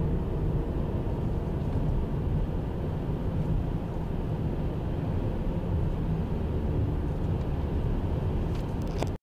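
Steady low rumble of a car driving along a paved highway: tyre and engine noise at cruising speed. A few short clicks come near the end before the sound cuts off abruptly.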